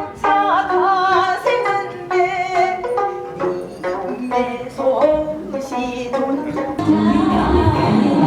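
Background music: a melody of separate pitched notes starting about twice a second, some of them wavering in pitch; near the end the music changes, with a low sweep rising and falling.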